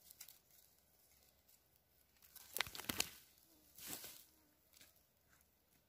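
Dry forest-floor litter and undergrowth crackling and rustling as it is handled: a cluster of sharp crackles about two and a half seconds in, and a shorter rustle about four seconds in.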